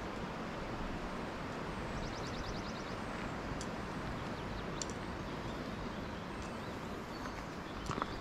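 Steady outdoor ambience in an alpine valley: an even rushing noise, with a brief high, rapid trill of ticks about two seconds in and a few faint clicks after it.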